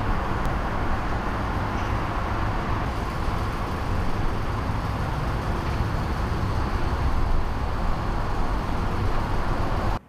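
Steady outdoor background noise: a fluctuating low rumble with an even hiss over it, no distinct events.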